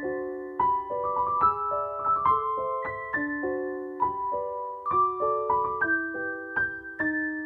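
Background piano music: a slow melody of single struck notes over held chords.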